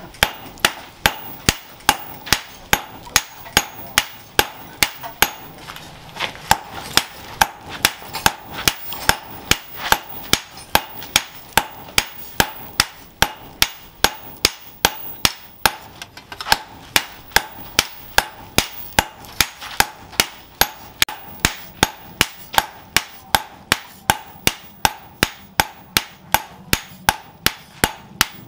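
Hand hammer forging a red-hot leaf-spring steel blade on a steel post anvil: a steady run of sharp blows, about two and a half a second, each with a short metallic ring.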